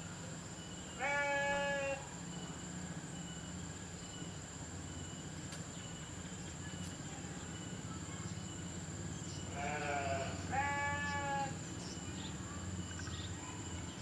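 Livestock bleating: three drawn-out bleats, one about a second in and two close together near ten seconds, each under a second long and steady in pitch.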